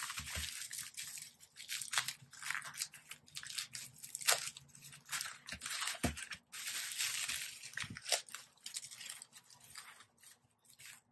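Bubble-wrap packaging crinkling and rustling as it is handled and pulled open by hand, with a sharp click about four seconds in. It thins out near the end.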